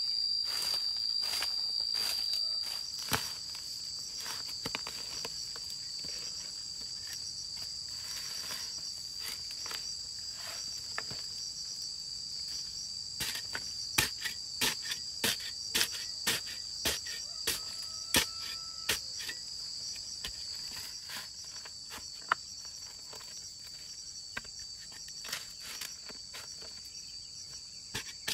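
Insects chirring steadily in a continuous high drone. In the middle comes a run of sharp strikes, about one and a half a second, from a metal spade chopping into dry earth, with scattered softer knocks before and after.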